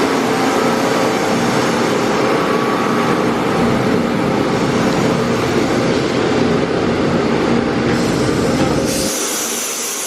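Makino A51 CNC horizontal machining center running under power: a steady mechanical hum with a few held tones. About nine seconds in, the low hum drops away and a high hiss starts.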